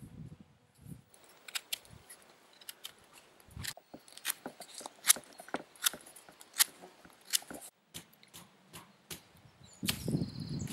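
Knife cutting a wooden stake by hand: a string of sharp, irregular clicks and snaps, about a dozen over several seconds, followed near the end by a low rustle of handling.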